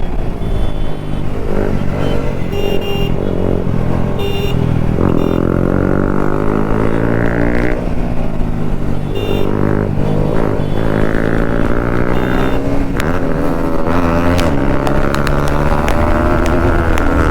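Bajaj Pulsar RS200's single-cylinder engine under hard acceleration, its pitch climbing through the revs and dropping back several times as the gears change.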